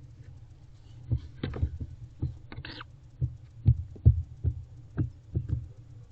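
Barn owlet close to the nest-box microphone: a string of irregular sharp clicks and taps, with a brief raspy sound about two and a half seconds in, over a steady low hum.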